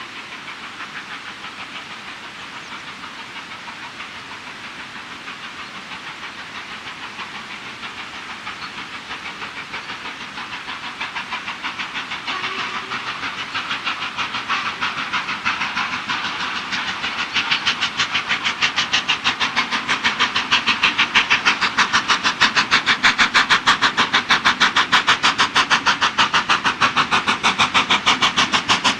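LMS Black 5 4-6-0 steam locomotive, a two-cylinder engine, working a passenger train with rapid, even exhaust beats that grow steadily louder as it approaches.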